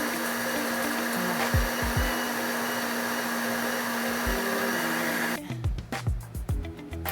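Electric blender motor running steadily with a constant hum, mixing Brazilian carrot cake batter, over background music; it cuts off suddenly about five seconds in.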